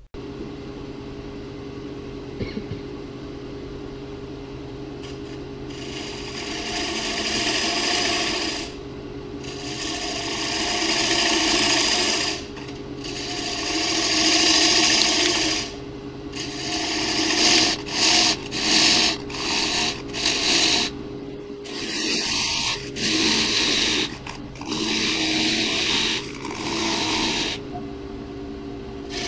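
Powermatic wood lathe running with a steady hum while a bowl gouge cuts a spinning square walnut bowl blank. The cutting comes in long passes of a few seconds each from about six seconds in, with a run of short, separate cuts around the middle.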